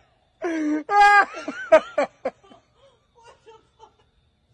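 A person laughing in short bursts for about two seconds, fading to faint bits near the end.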